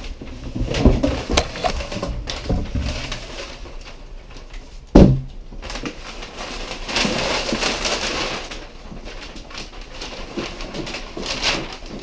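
Crumpled kraft packing paper rustling and crackling as it is pulled out of a cardboard box, with one heavy thump about five seconds in.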